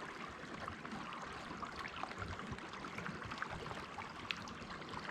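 Running creek water, a steady rush with many small irregular splashes.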